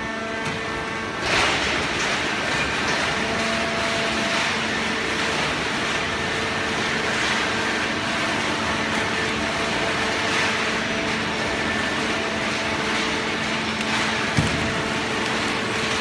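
Horizontal hydraulic baler and its feed conveyor running: a steady mechanical hum with a few held tones over broad machine noise. It swells a little over a second in, and there is a single sharp knock near the end.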